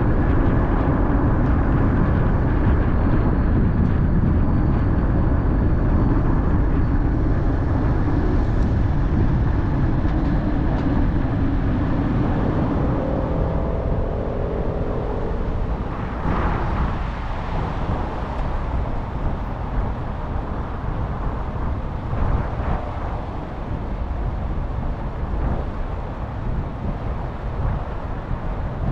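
A car driving on city streets: a steady low rumble of road and engine noise, easing somewhat a little over halfway through.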